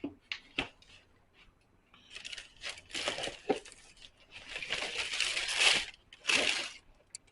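Paper crinkling and rustling in bursts, after a few light clicks in the first second.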